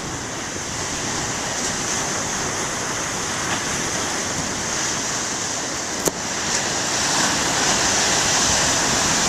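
Big ocean waves breaking, a steady rushing surf that swells louder about two-thirds of the way through. A single sharp click about six seconds in.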